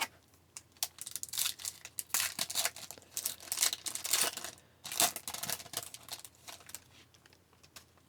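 Wrapper of an Upper Deck Series 1 hockey card pack being torn open and crinkled in the hands: a run of sharp crackles and rips that thins out near the end.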